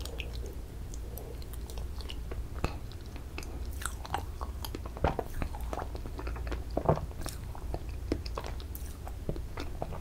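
Close-miked mouth sounds of eating ice cream: wet smacks and small irregular clicks as a spoonful of rainbow sherbet is worked in the mouth and swallowed, with a few louder smacks about five and seven seconds in.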